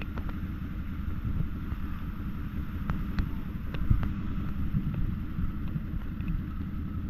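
ATV engine running under a low wind rumble on the microphone, with scattered sharp knocks and clicks.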